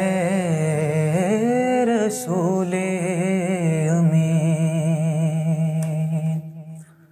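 A man's solo voice singing the wordless, drawn-out opening of a naat, gliding through wavering ornamented notes and then holding one long steady note that fades away near the end.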